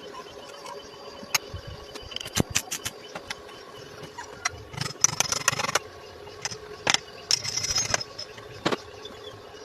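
Metalwork sounds: scattered sharp metallic taps and clinks over a steady low hum, with two short bursts of dense crackling about five and seven and a half seconds in.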